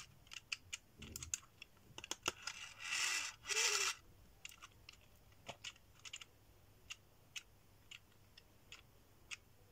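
Small clicks and scrapes of a thin plywood clock hand and its plastic centre cap being pressed onto the spindle of a clock movement. There are two brief rustles about three seconds in, then a run of light ticks roughly every half second.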